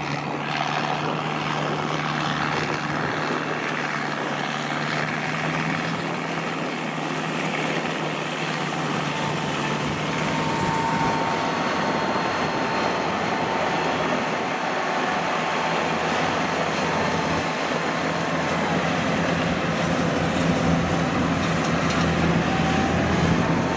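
Rice combine harvester running while cutting and threshing a rice crop: a steady, continuous mechanical noise with a constant low hum, and a faint whine that comes in for a few seconds midway.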